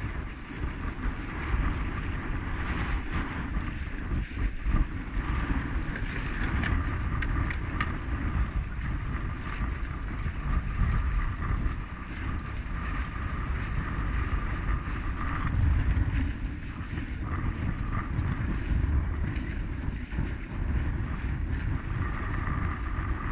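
Strong wind buffeting the microphone in gusts, with choppy water around the kayak; a faint, steady high-pitched tone comes and goes.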